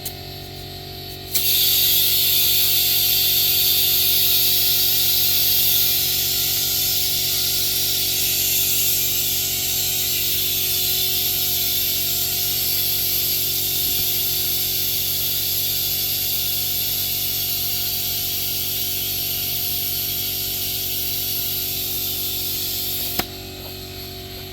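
Loud, steady hissing that starts suddenly about a second in and cuts off suddenly near the end, over a low steady hum.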